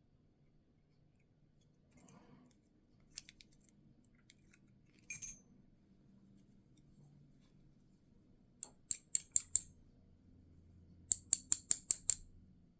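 Small metal parts clicking and scraping as tweezers work a key pin out of the pin chamber of an American Lock 1100 padlock being disassembled. A few scattered clicks and a short scrape, then two quick runs of sharp clicks, about five a second, in the last third.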